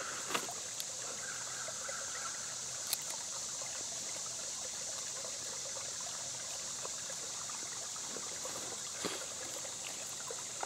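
Shallow woodland stream trickling gently over rocks, a steady water sound, with a few faint clicks here and there.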